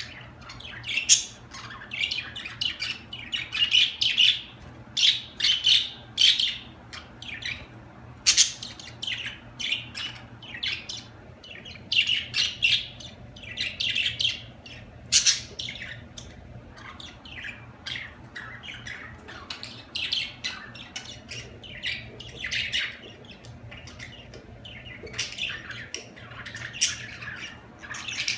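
Budgerigars chirping, warbling and squawking in a dense, continuous chatter of short sharp notes, over a faint steady low hum.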